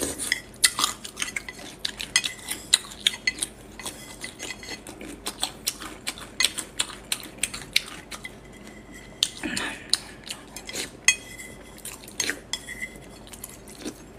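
Eating sounds: spicy noodles slurped and chewed, with chopsticks clicking against the plate as many short, sharp clicks and smacks, and a longer slurp about nine seconds in.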